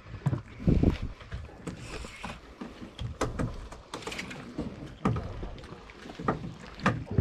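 Irregular knocks and thumps aboard a boat at sea, over a low rumble and a hiss of water and wind.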